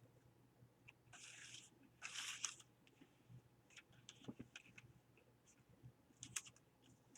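Faint handling of collage paper: two short rustling, scraping bursts about one and two seconds in, with scattered light clicks and taps.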